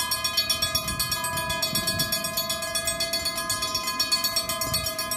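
Two level-crossing warning bells ringing in rapid, evenly repeated strokes as the crossing barriers come down.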